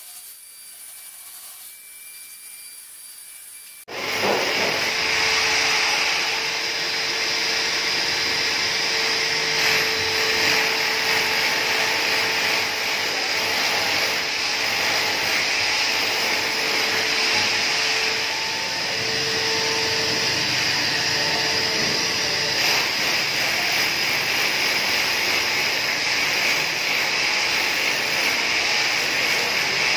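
Electric drill boring into the wall above a window to mount blind brackets: after a quiet start it kicks in suddenly about four seconds in and runs steadily, a motor whine over a grinding noise.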